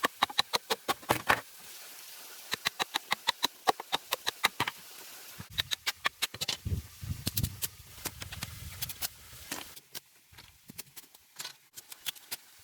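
Rapid runs of sharp knocks or taps, about five or six a second, with a low rumbling through the middle stretch.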